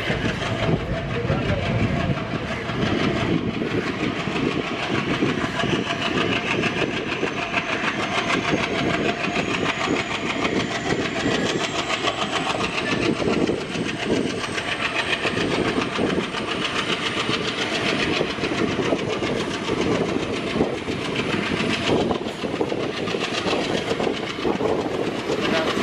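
Express passenger train running at speed, heard from on board: a steady rumble and the clatter of wheels over the rails, with a faint high whine slowly rising in pitch.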